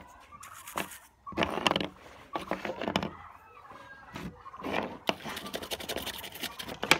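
First some handling noise, then a toothbrush scrubbing the plastic casing of a USB pen drive: the bristles scrape in quick back-and-forth strokes from about five seconds in.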